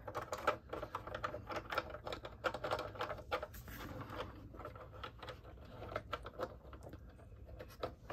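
Hard plastic parts of a 1985 Hasbro G.I. Joe Cobra Moray hydrofoil toy boat and an action figure clicking and tapping together as the figure is worked into a cockpit seat. The clicks are small and irregular.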